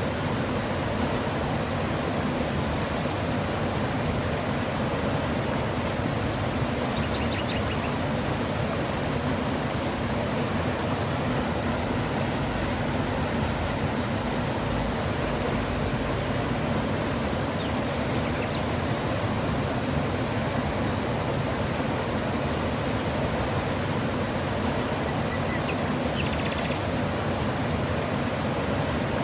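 Mountain river flowing: a steady rush of water. A faint high chirp repeats about twice a second until near the end, with a few brief higher chirps now and then.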